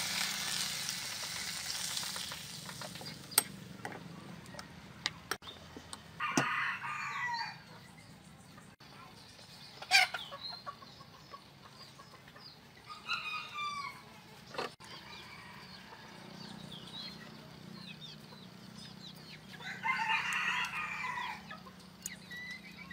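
A rooster crows twice in the background, about 6 s and 20 s in, with hens clucking in between. At the start, hot liquid poured from a pan over garlic and soy sauce in a glass bowl hisses for a couple of seconds. A few sharp knife knocks on a wooden chopping board come while squid is being cut, the loudest about 10 s in.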